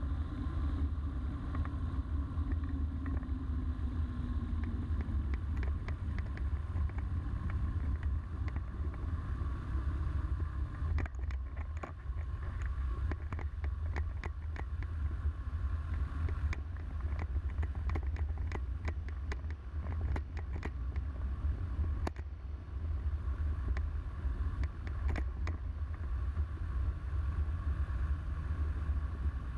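Microlight trike's pusher engine running at low power as it rolls on the ground, its pitch falling over the first few seconds, with steady low wind rumble on the microphone. A run of sharp clicks and knocks comes in the middle.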